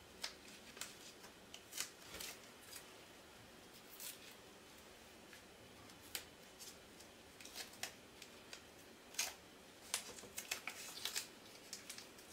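Faint crackles and short tearing ticks of blue painter's tape, the delicate kind, being ripped into thin strips and pressed down onto a puzzle piece. They are sparse at first and come thicker in the last few seconds.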